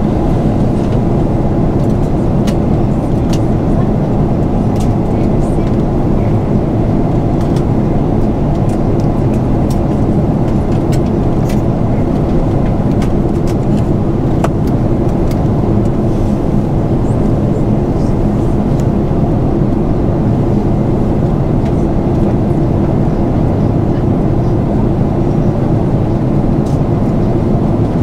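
Steady engine and airflow drone heard inside the cabin of an Airbus A340-300, even in level throughout, with faint light ticks now and then.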